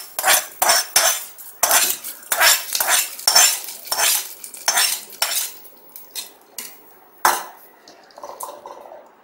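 Steel ladle scraping and knocking against a steel kadai and the rim of a steel bowl as fried tempering is emptied into idli batter: a quick run of metallic clinks and scrapes, thinning out, with one loud knock about seven seconds in. Near the end only faint mixing sounds.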